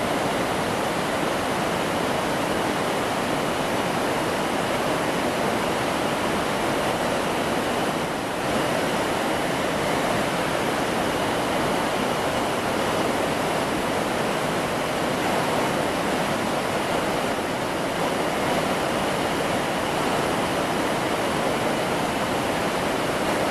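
Mountain stream running, a steady, unbroken rush of water.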